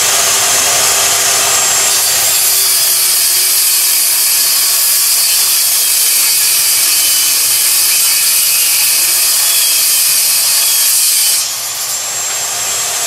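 DeWalt circular saw, mounted in a rip sled, running at full speed and ripping through a board. The high cutting sound grows stronger about two seconds in and drops off sharply near the end as the blade clears the wood and the saw runs free.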